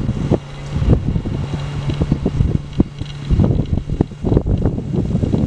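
Wind buffeting the microphone in irregular gusts, over a steady low hum that stops about three seconds in.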